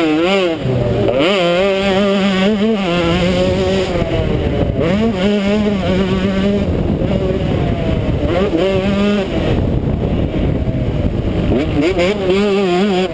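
KTM 125 SX two-stroke single-cylinder engine revving hard under racing throttle, its pitch climbing through each gear and dropping back at the shifts and when the throttle is shut for corners, heard from the rider's helmet.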